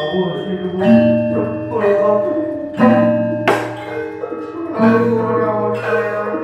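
Javanese gamelan playing: bronze metallophones and gongs struck in a steady pattern about once a second, their tones ringing on. A sharp knock sounds about three and a half seconds in.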